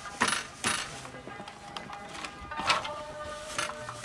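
Wooden hand loom being worked: several sharp wooden knocks and clacks from the loom's frame and beater as the weaver works it.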